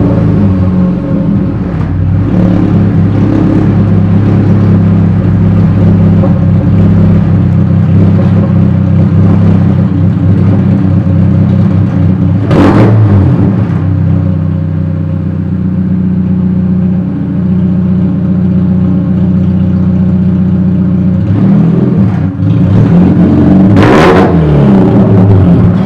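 Chevrolet Cobalt SS's supercharged four-cylinder engine running loud and raw with its exhaust come loose, effectively straight-piped: an exhaust leak. It holds a steady idle and is revved briefly about halfway and again near the end.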